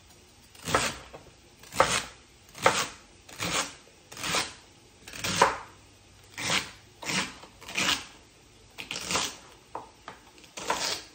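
Chef's knife slicing through celery stalks onto a cutting board: about a dozen crisp crunching cuts at a steady pace of roughly one a second.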